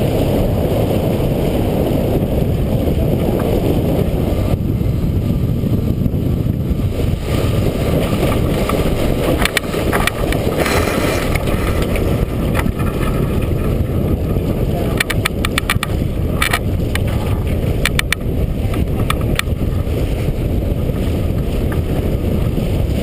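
Steady low rumble of wind buffeting the microphone and water rushing along a T-10 sailboat's hull as it sails upwind through chop. Clusters of sharp clicks and knocks come in about ten seconds in and again between about fifteen and nineteen seconds.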